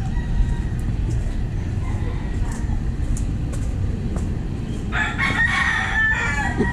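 A rooster crows once, about five seconds in, for about a second and a half, over a steady low rumble of background noise.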